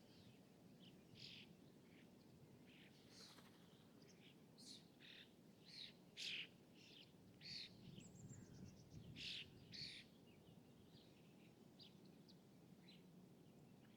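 Faint small birds chirping in short, separate calls, busiest in the middle, with one quick falling trill about 8 seconds in, over a steady low background rumble.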